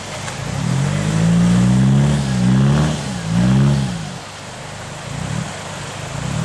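A 4x4 pickup's engine revving under load: held high for a couple of seconds, then two quick revs that rise and fall, then easing off about four seconds in.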